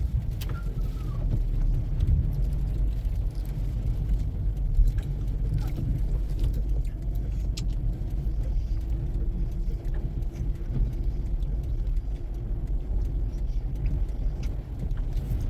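Low, steady rumble inside a car's cabin as it drives through a blizzard, from the engine, the road and the wind, with a few faint ticks.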